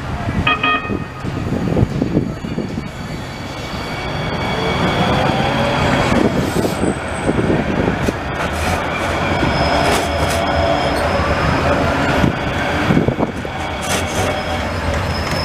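NJ Transit articulated light rail car running past on street track, its motor whine gliding up and down over a steady rumble, with high wheel squeal and clicks from the rails. A brief short tone sounds about half a second in.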